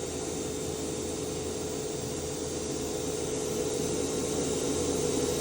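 Daewoo DMV-3016 vertical machining center's spindle running at about 7,000 RPM: a quiet, steady whine over a hiss, slowly getting louder.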